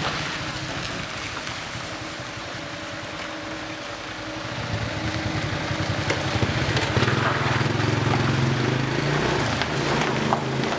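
A vehicle engine running with a low, steady hum that grows louder for several seconds from about halfway through, then eases near the end.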